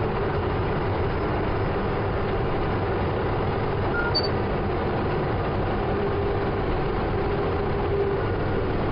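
Steady drone of a Case IH 620 QuadTrac tractor's diesel engine and drivetrain heard from inside the cab while it drives, with the engine held at about 1800 rpm.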